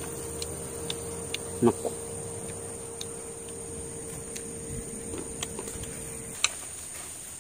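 Insects chirring steadily in the field grass, over a low steady hum that stops about six seconds in. Scattered small clicks come from a fresh peanut pod being cracked open by hand, and there is a brief vocal murmur about a second and a half in.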